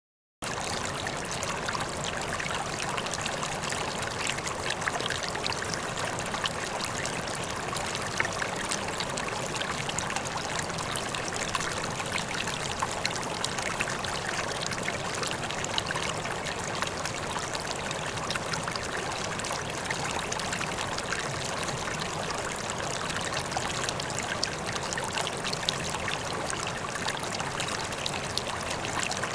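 Mountain stream babbling and trickling steadily, with many small splashes over the running water; it starts about half a second in.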